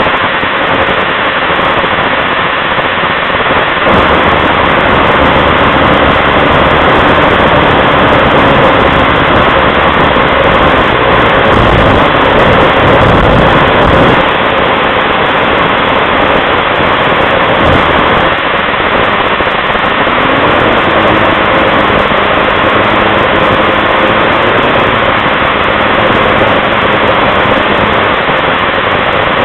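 Snowmobile riding at speed, heard from on board: a loud, steady rush of engine and track that barely changes.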